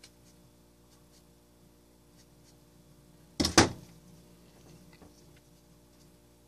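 Faint handling sounds of a cardboard model-rocket body tube as shock cord is worked through a slot cut in its side, with one short loud knock about three and a half seconds in.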